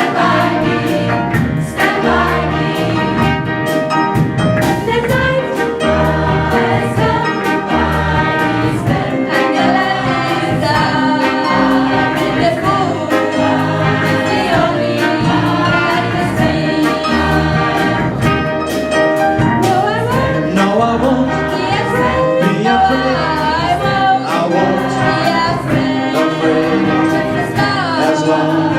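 Gospel choir singing with band accompaniment, the voices gliding between notes in a continuous song.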